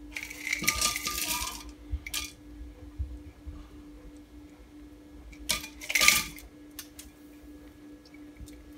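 Ice cubes poured into a glass blender jar, clattering and clinking against the glass in a long burst at the start and a second, louder burst about six seconds in, with a few single clicks after.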